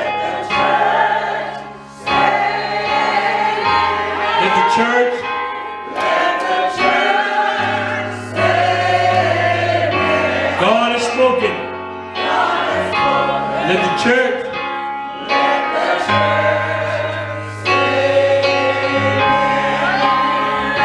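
Gospel choir singing with held bass notes underneath that change every few seconds.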